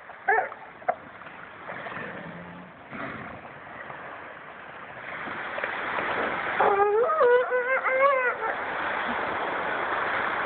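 Elephant seals calling: a few short yelping calls in the first second, then one long wavering call lasting about two seconds in the second half, over a steady rushing background noise.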